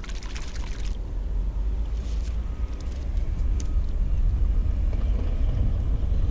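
Wind rumbling on the microphone, growing louder toward the end, with a brief splash of water in the first second as a hand swishes a find in the shallows.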